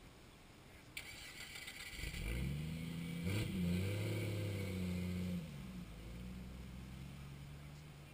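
Jeep Liberty engine revving under load as it crawls over a fallen-tree obstacle: the engine note rises about two seconds in, holds loudest for a few seconds, then drops back to a lower steady run. A scraping, crunching noise from the tyres and underbody starts about a second in and fades as the revs drop.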